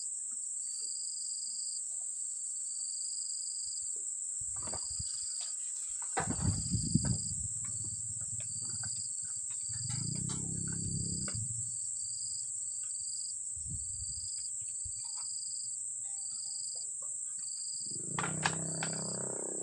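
Insects droning steadily at a high pitch, with a high chirp repeating about every half second or so. A few low thumps come about six to seven seconds in, and low rumbling sounds come twice, the second near the end.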